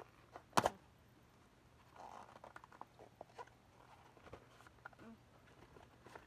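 Quiet handling of a paper-and-cardboard paint set card as it is held and turned over: light rustling and small ticks, with one sharp click about half a second in that is the loudest sound.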